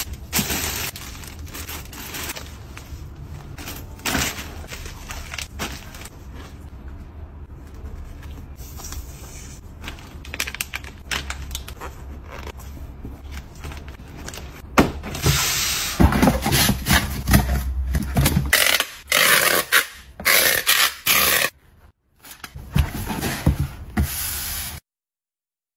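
Packing sounds: plastic bags and paper rustling and sliding as items go into a cardboard box. From about fifteen seconds in come louder, denser scraping and tearing sounds as the box is closed and sealed with packing tape. The sound stops abruptly about a second before the end.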